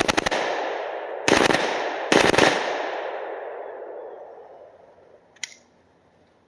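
HK UMP 45 submachine gun in .45 ACP firing on full auto: three short bursts of a few rounds each, the first just ending at the start and two more about a second apart. Each is followed by a long rolling echo that fades over a few seconds, and a single sharp click comes near the end.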